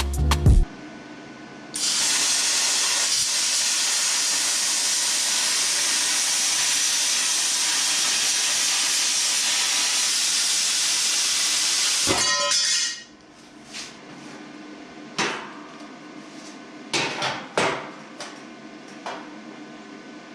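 Plasma cutter cutting sheet metal: a steady loud hiss of the air and arc that starts sharply and runs for about eleven seconds, then stops. A few light metallic knocks follow.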